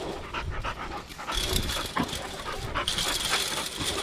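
Pit bull-type dog panting with its mouth open. The hissing breaths grow louder in two stretches, about a second and a half in and again near the end.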